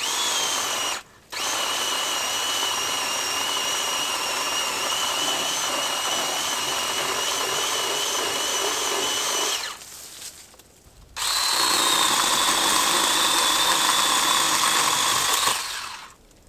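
Cordless electric chainsaw cutting firewood from a dead log, a steady high motor whine. It drops out briefly about a second in, stops for about a second and a half past the middle, then makes a second cut at a different pitch that ends shortly before the end.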